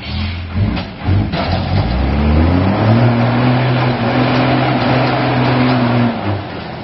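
Mercedes-Benz Unimog engine working under load as the truck climbs over rocks: uneven bursts at first, then revving up about two seconds in and holding steady high revs before easing off near the end.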